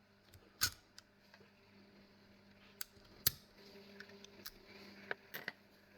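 Sparse sharp metallic clicks and taps from a padlock and its picking tools being handled, about six in all, the loudest just over three seconds in.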